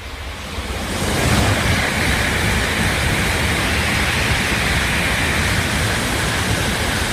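Tokaido Shinkansen bullet train passing through the station at high speed without stopping: a loud rush of air and wheels on rail with a low rumble. It builds during the first second, then holds steady as the long train goes by.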